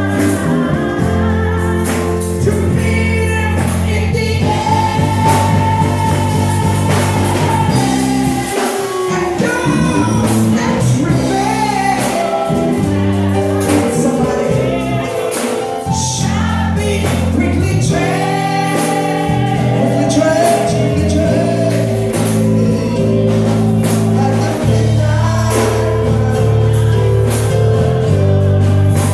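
Church congregation singing a gospel song and clapping along, led by a woman singing into a microphone.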